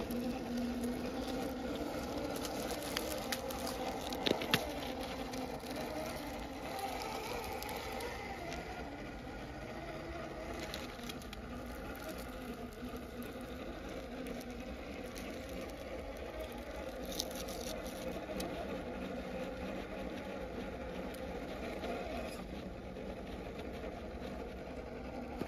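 Hobbywing Fusion SE 1800kv brushless motor and gear drivetrain of an Axial Capra 1/10 four-wheel-steer rock crawler running at crawl speed, a steady whir, with a few sharp knocks against rock about four seconds in.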